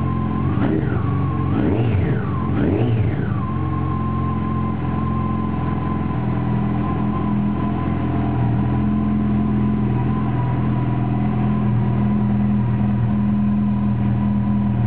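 Yamaha FJR1300's inline-four engine running through Two Brothers M-2 V.A.L.E. titanium silencers, heard close to the silencer. It is blipped three times in quick succession in the first three seconds, each rev a little higher than the one before, then settles back to a steady idle.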